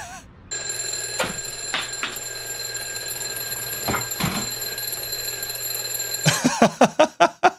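Mechanical alarm clock ringing continuously. Near the end the ringing gives way to a fast run of short pulses, about four or five a second.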